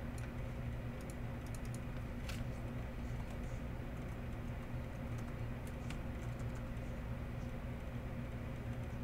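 Light, irregular clicks of typing on a computer keyboard, over a steady low hum.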